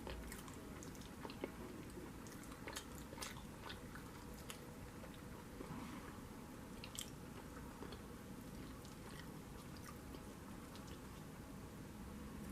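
A person chewing and biting food close to the microphone, with scattered small clicks.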